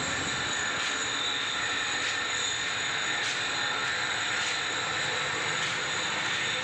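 A machine runs steadily, a constant hiss with high whining tones and a faint tick about every second.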